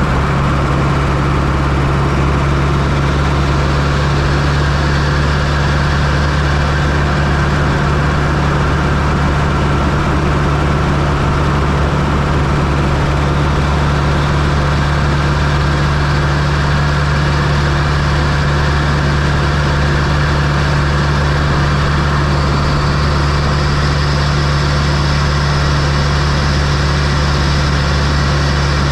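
1995 Fiat Coupe's 2.0 16V turbocharged four-cylinder engine running steadily at constant revs, heard from inside the engine bay.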